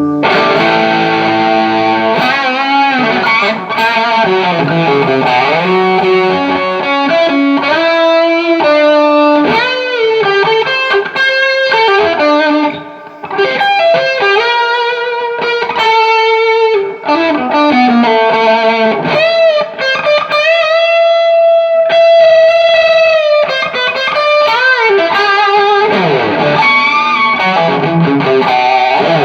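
Overdriven electric guitar played through a Carr Lincoln tube amplifier fitted with new JJ EL84 power tubes: a lead line of quick single notes and string bends, with a long held note with vibrato about two-thirds of the way through.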